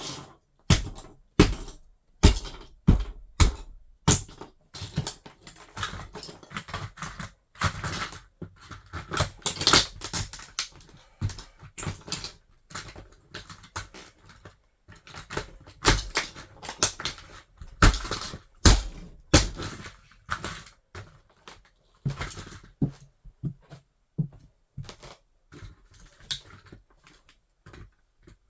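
A toy car cracking and crunching as it is crushed under a wedge sandal, with irregular sharp snaps and crackles, louder breaks clustering every few seconds.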